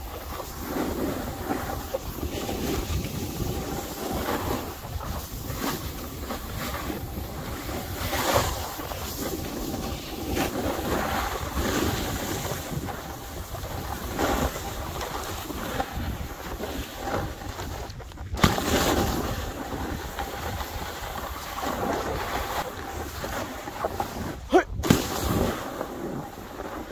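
Snowboard sliding and carving over packed, groomed snow, a steady scraping hiss that swells and fades with each turn, mixed with wind buffeting the microphone. The sound drops out briefly twice, about two thirds in and near the end, each time followed by a sharper scrape.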